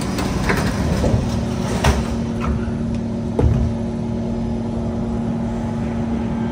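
Inside a Kawasaki C151 MRT train: the carriage's equipment hums steadily, the hum growing stronger about two seconds in, with a few sharp knocks about half a second, two and three and a half seconds in.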